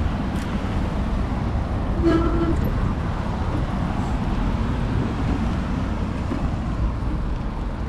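Steady rushing noise of road traffic and wind buffeting a bike-mounted action camera's microphone while riding along a roadside path, with a short pitched sound about two seconds in.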